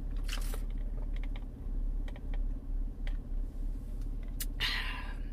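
Drink sipped through a plastic straw from a lidded paper fast-food cup, with small clicks and creaks from the cup and lid and a short hissing slurp near the end. A steady low hum runs underneath, inside the car.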